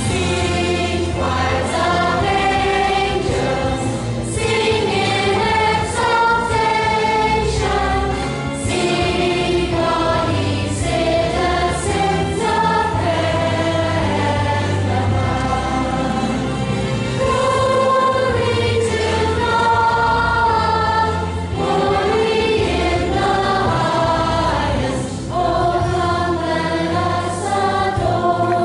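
Children's choir singing a song together in unison, with low bass notes from an accompaniment underneath.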